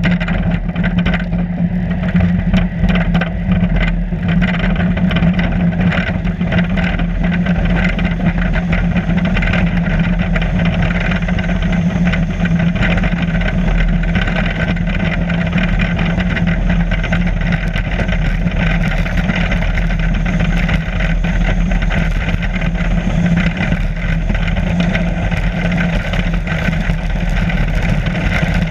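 Bobsleigh running down an ice track, heard from on the sled: its steel runners on the ice make a loud, steady low rumble, with frequent small knocks and rattles from the sled.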